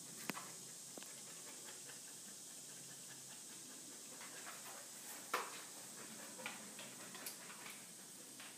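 Quiet room tone: a steady hiss with a few faint, scattered clicks and taps, the loudest about five seconds in.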